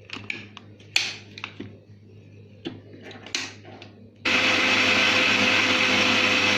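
A few light clicks and knocks, then about four seconds in an electric blender switches on and runs at a steady high speed. It is blending a mayonnaise mix of egg, milk and seasonings after a portion of soybean oil has been added.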